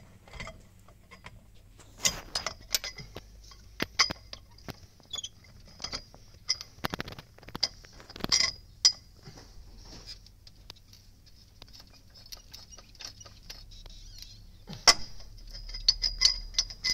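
Hand ratchet and socket clicking on car wheel bolts as they are broken loose and spun out, with several sharp metal knocks from a pipe extension used as a breaker bar.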